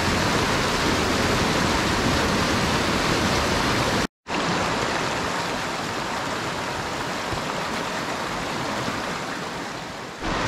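Shallow stream rushing over rocks and small cascades, a steady wash of water. The sound cuts out for a moment about four seconds in, then carries on.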